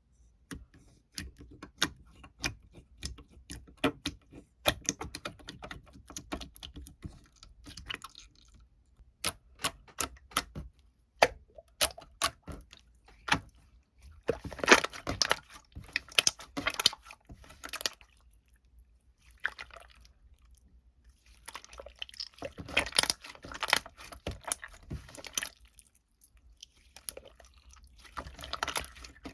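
Close-up handling sounds: a run of sharp clicks and taps, with rustling, crinkling stretches around the middle and again near the end.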